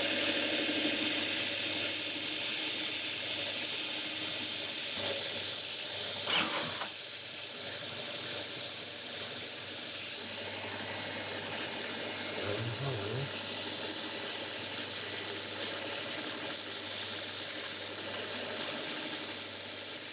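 Belt sander running with a small part pressed against its moving abrasive belt, grinding it thinner: a steady hissing grind that eases slightly about halfway.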